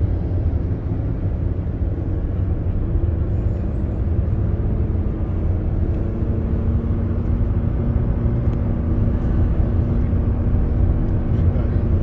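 Road noise inside a moving car's cabin at freeway speed: a steady low rumble of tyres and engine, with a faint steady hum running through it.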